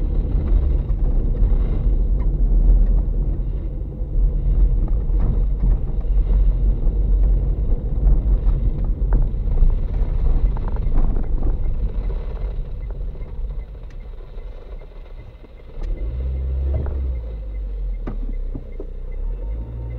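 Car driving over a rough unpaved road: a heavy, uneven rumble of tyres and suspension with scattered knocks, which eases off after about twelve seconds. From about sixteen seconds in, a steadier engine hum takes over as the car pulls onto smooth paved road.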